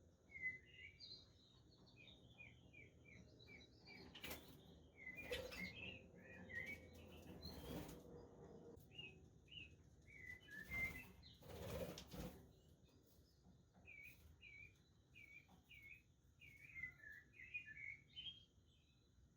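Budgerigars chirping in many short, quick calls, with a few brief flurries of wing flapping in the middle.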